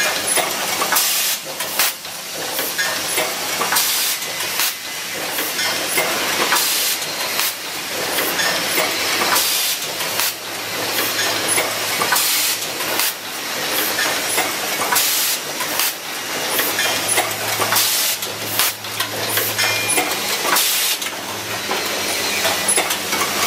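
Automatic switch-assembly machine running: pneumatic actuators clack and release air in quick, irregular strokes over a steady hiss, with a low hum that is strongest in the second half.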